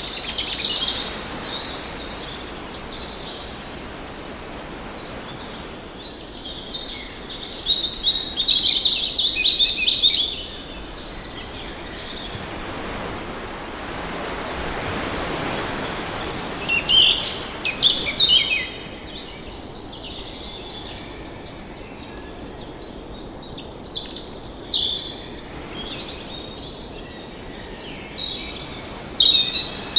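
Birds singing and chirping in repeated high phrases that come in clusters, over a steady wash of rushing water that swells and fades again about halfway through.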